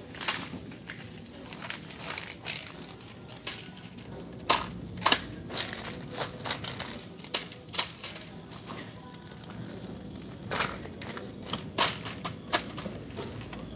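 Clear plastic wrap crinkling and crackling close to the microphone in irregular snaps and crunches, the sharpest about four and five seconds in and again near the end, over a steady low hum.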